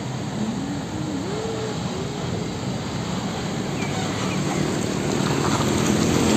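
Isuzu fuel tanker truck's diesel engine and tyres running as it drives past on a road, with traffic noise, growing gradually louder toward the end as the truck comes close.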